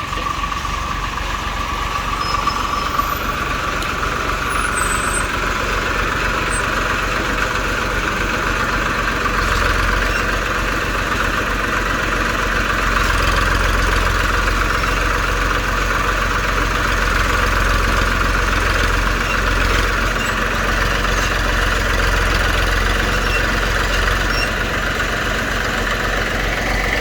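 TAFE tractor's diesel engine running steadily under a backhoe loader, with a steady high whine above it. The engine grows louder about ten seconds in and stays up.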